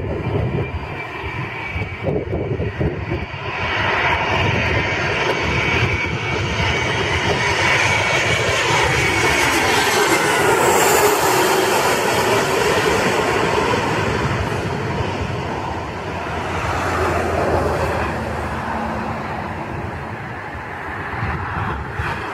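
Boeing 737 jet airliner flying low overhead on landing approach, gear down. Its turbofan engine noise swells as it nears and is loudest about ten seconds in, with a whine that falls in pitch as it passes, then slowly fades.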